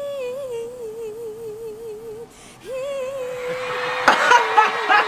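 A young woman singing solo, holding a long note with vibrato, breaking briefly and then holding a second long note. About three seconds in, audience cheering and clapping swells up under her voice.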